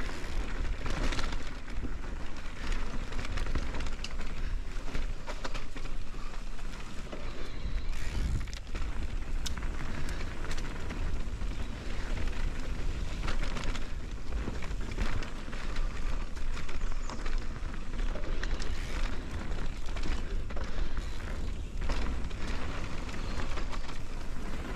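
Ride noise of an Ibis Oso e-mountain bike on a dirt trail: wind buffeting the camera microphone as a steady rumble, tyres on dirt and gravel, and frequent short knocks and rattles from the bike over bumps.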